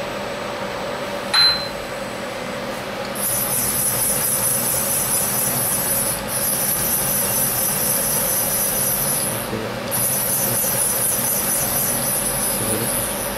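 CNC milling machine running with a steady hum; a short beep about a second and a half in, then a steady high-pitched whine of the table drives from about three seconds in, pausing briefly twice, as the vise jaw is swept past a dial indicator to check that it is square.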